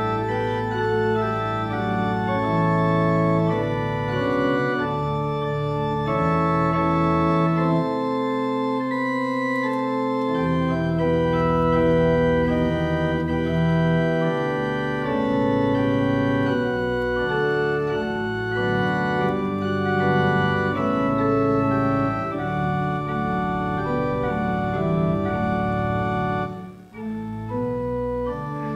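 Organ playing slow, sustained chords that change every second or two, with a brief break near the end.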